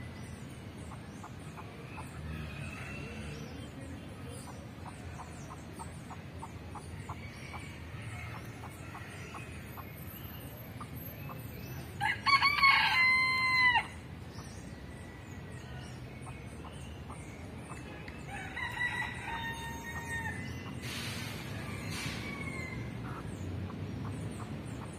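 Rooster crowing once, loud, about halfway through, followed a few seconds later by a second, fainter crow.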